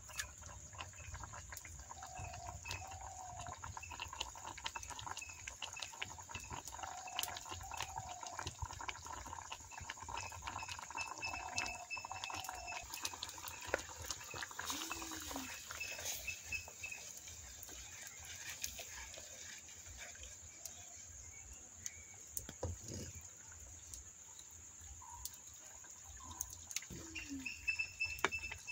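Clay pot of fish boiling over a wood fire: a steady patter of small crackles and pops from the fire and the bubbling broth. Short farm-animal calls sound a couple of times in the background.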